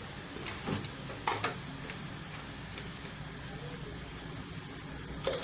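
Chopped onion, garlic, carrot, capsicum and green beans sizzling steadily in hot vegetable oil in a frying pan, just after the vegetables and salt went in. A few faint clicks break through the sizzle.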